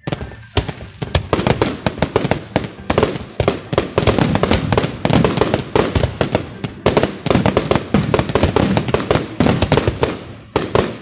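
Fireworks going off in a dense, rapid barrage of bangs and crackles, with a brief lull partway through, thinning out near the end.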